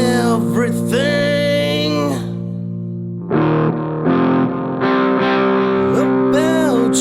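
Background music led by an electric guitar played through distortion and effects, with bending, sliding notes over held tones.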